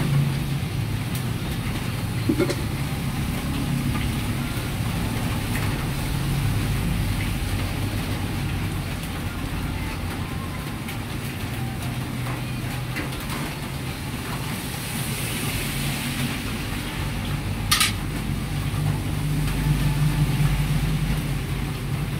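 Steady low rumble of kitchen background noise, with a few light metal clinks of a ladle against a foil serving tray in the first few seconds and one sharp click about eighteen seconds in.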